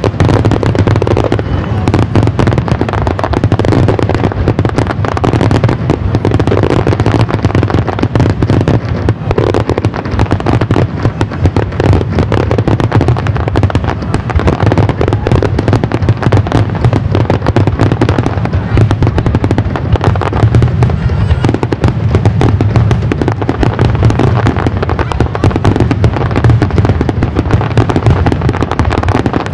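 Aerial fireworks bursting in a rapid, continuous barrage: loud booms and crackles overlap without a break.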